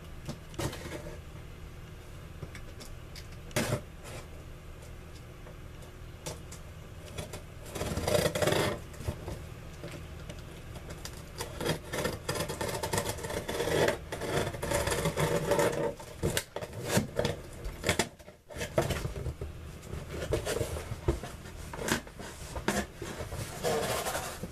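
A shipping package being opened by hand: irregular scraping, rustling and sharp knocks of packaging being torn and handled, busiest in the second half.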